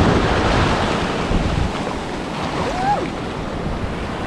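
Ocean surf washing up over a sandy beach. It is louder for the first second and a half, then eases. Wind is on the microphone.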